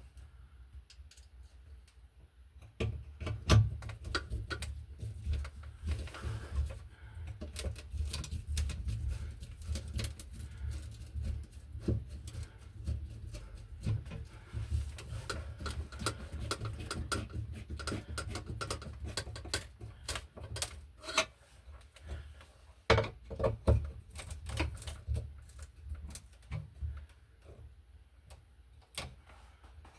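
Irregular clicks, taps and knocks of hand tools and small electrical parts being worked by hand, over a low rumble of handling noise that stops near the end.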